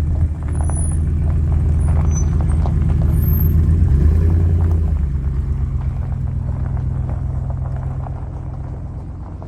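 Farm tractor engine running steadily under load with light rattles; its pitch rises briefly about four seconds in, then settles a little lower and fades slightly near the end.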